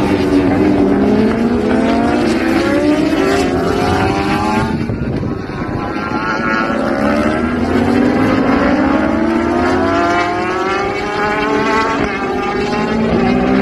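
Several racing motorcycles run around the circuit at high revs, their engine notes overlapping, the pitch climbing and dropping again and again.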